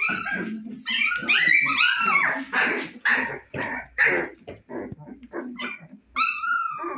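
Siberian Husky puppies, about 25 days old, yipping and squealing as they play-wrestle: a rapid string of short, high calls, loudest in the first half, and a longer whine falling in pitch near the end.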